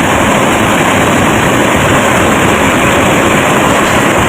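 Loud, steady engine-like noise, dense and even with no clear rhythm.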